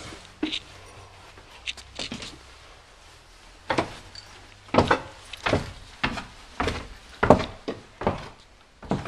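Footsteps going down stairs into a basement, heavy steps at about two a second, after a few scattered knocks in the first couple of seconds.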